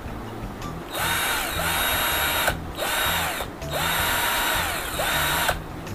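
ProDIY 18-volt cordless drill driver running free with no bit, triggered in three bursts: its motor whine rises as it spins up and falls as it slows at each release.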